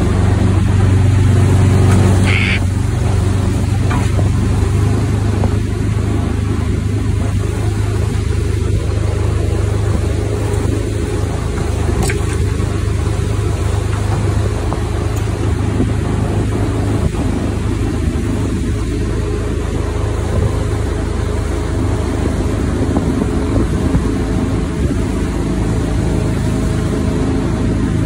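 23 hp Vanguard V-twin engine pushing a jon boat along at a steady cruise, a constant low drone with no change in speed.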